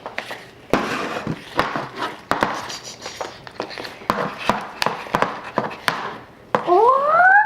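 Wet slime being stirred in a bowl, with repeated sharp clicks and taps of the utensil against the bowl and bursts of scraping. Near the end a child's voice rises steadily in pitch without words.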